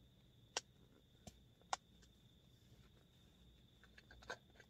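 Quiet handling of small hard objects: a few sharp clicks and taps, two about a second apart early on and a quick cluster near the end, over a faint steady high whine.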